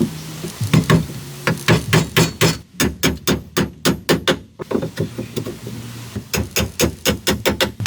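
Rapid, repeated hammer blows on wood, about three or four a second, easing off briefly in the middle before picking up again.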